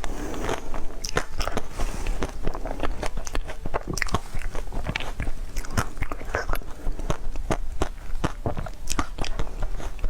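Seafood being eaten close to the microphone: biting, crunching and chewing, with many sharp cracks and clicks in quick succession.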